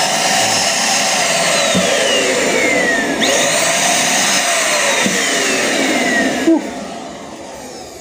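Bolde Super Hoover Turbo handheld vacuum cleaner, freshly repaired, running at full suction on a denim cloth, its whine sliding down in pitch twice. About six and a half seconds in there is a click, and the motor winds down.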